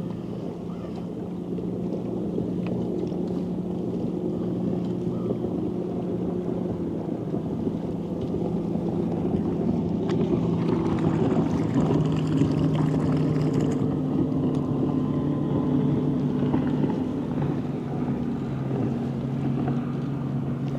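Boat motor running steadily, its pitch stepping down a few times, with some wind on the microphone.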